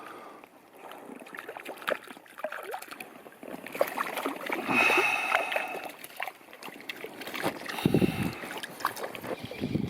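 Water splashing and sloshing in irregular bursts as hooked fish thrash and are handled at the surface to be unhooked.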